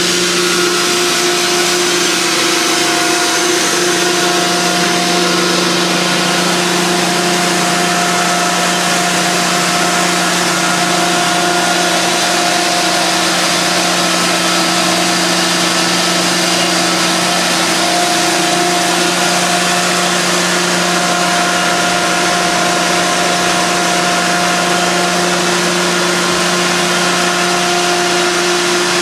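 Dual phase extraction unit running steadily: a 60 HP Baldor electric motor driving a Travaini liquid ring vacuum pump, with its oil cooler and oil circulating pump. It makes a loud, constant hum of several steady tones over a rushing noise.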